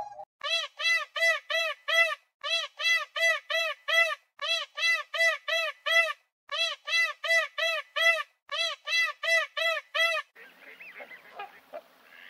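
A honking animal call repeated about three times a second in five runs of five or six, each call the same rising-and-falling note. It stops about ten seconds in, leaving a faint hiss with a few weak sounds.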